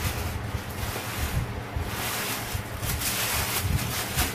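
Crumpled white packing stuffing rustling and crinkling as it is pulled out of a new handbag, the crinkling loudest in the second half.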